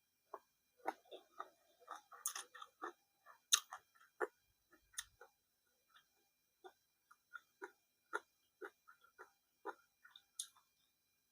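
Close-up chewing and mouth sounds of a person eating: a string of short, irregular wet smacks and clicks, a few of them louder.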